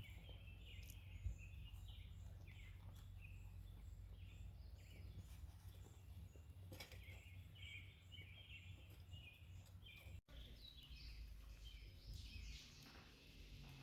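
Faint outdoor birdsong: many short chirps from small birds, with a row of high, evenly spaced peeps, over a low steady rumble.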